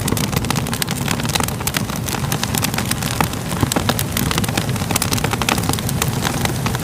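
Fire crackling: many sharp, irregular snaps over a steady low rumble of burning.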